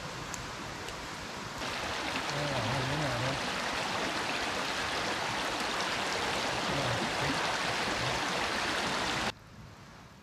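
Stream water running in a steady rush. It gets louder about a second and a half in and cuts off abruptly near the end.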